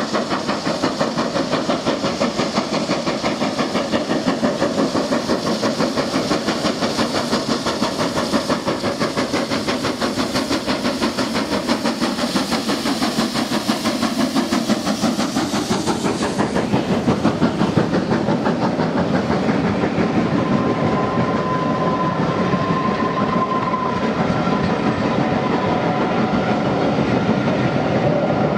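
GWR Manor class 4-6-0 steam locomotive No. 7827 'Lydham Manor' working past with a passenger train, its exhaust beats running fast over hissing steam. Then the coaches roll by with a clatter of wheels over the rail joints, and a thin squeal sounds for the last several seconds.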